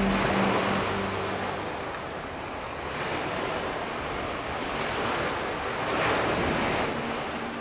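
Sea waves surging and washing on a shore, swelling and ebbing in a few slow surges. Background music fades out in the first second or two.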